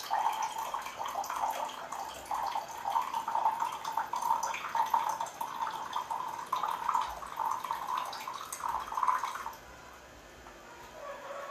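Water running and splashing steadily, then stopping about nine and a half seconds in.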